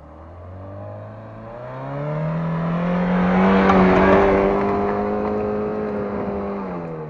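Car engine at full throttle in first gear on a steep off-road climb: the revs rise over the first few seconds, hold high at the loudest point about four seconds in, then ease off and fall near the end.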